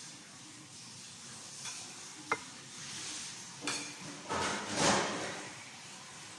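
Eating sounds at a table: cutlery clinks once against a plate with a short ring, then a louder noisy stretch of biting and chewing near the microphone about four to five seconds in.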